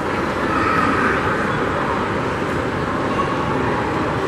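Steady, loud noise of a busy underground transit hall, with no single event standing out.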